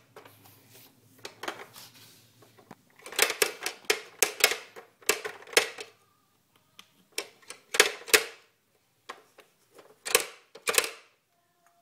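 Plastic clicks and clacks of a baby's purple pop-up animal toy as its buttons and pop-up figures are worked by hand. The clicks come irregularly, in quick clusters of several at a time.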